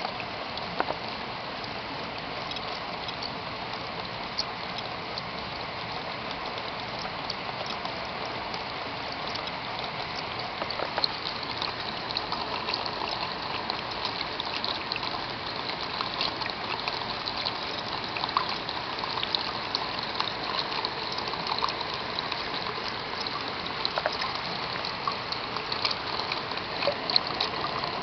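Rainwater splashing and running, with a dense patter of small drop ticks over a steady rush; it grows a little louder about ten seconds in.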